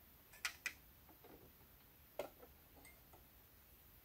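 Near silence with a few faint clicks as fingers work thread into the needle-bar thread guide of a sewing machine: two close together about half a second in, one a little after two seconds.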